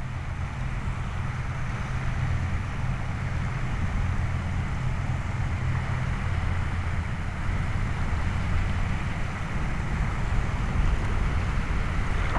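Steady wind buffeting the microphone with a constant low rumble, over the even wash of shallow water.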